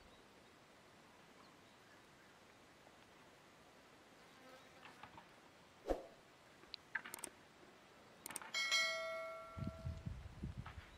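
A click and then a bell-like chime ringing for about a second, a subscribe-button notification sound effect. It stands out against faint outdoor quiet with a few soft clicks, and low soft knocks begin near the end.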